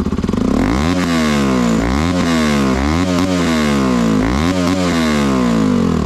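Bajaj Pulsar RS 200's single-cylinder engine revved in neutral through an aftermarket replica Akrapovic slip-on exhaust with its dB killer fitted: several quick throttle blips, the pitch climbing and falling each time, then dropping back to idle near the end.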